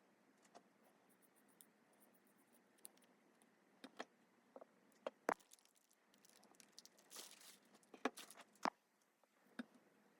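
Faint, scattered small clicks and taps of repair tools against the parts of a folding phone being disassembled, with a brief scratchy rustle about seven seconds in.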